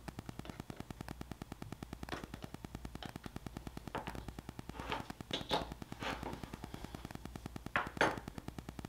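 A fast, even electronic ticking buzz, about ten clicks a second, with a few louder clicks and taps from small parts being handled, the loudest near the middle and about a second before the end.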